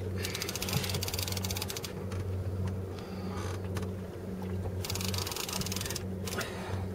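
Fishing reel ratcheting in two long bursts of rapid clicks, over the steady low hum of the boat's engine.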